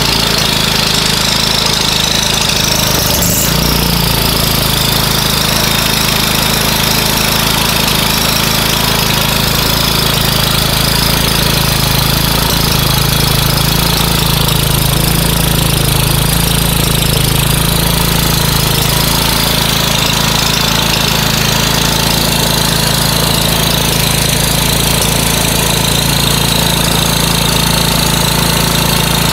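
Honda EG6500CL petrol generator's engine running steadily at a constant speed, with a brief knock about three and a half seconds in.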